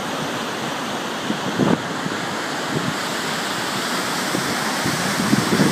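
Gullfoss waterfall rushing as a steady wash of noise, with wind buffeting the microphone in gusts, once at about a second and a half in and again near the end.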